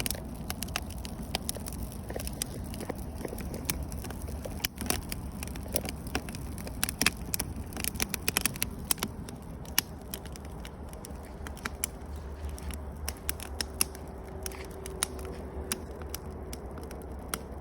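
Wood campfire crackling: irregular sharp snaps and pops over a steady low rumble.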